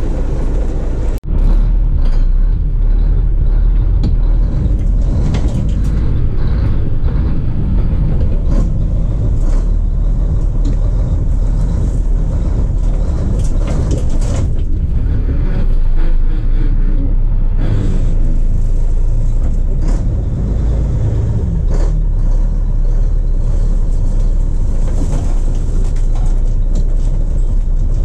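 1983 Mack cabover semi's diesel engine running under way, a steady low rumble heard from inside the cab, with scattered small knocks and rattles. There is a sharp dropout about a second in.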